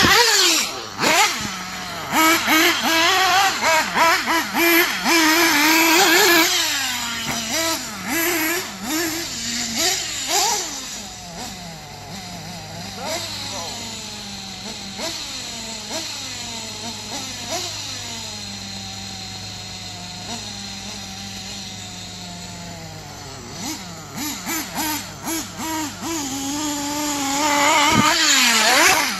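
Mugen MBX7R 1/8-scale nitro buggy's small two-stroke glow engine revving up and down in rising and falling whines as it is driven. Loud near the start and the end as the buggy runs close, fainter in the middle as it runs far off.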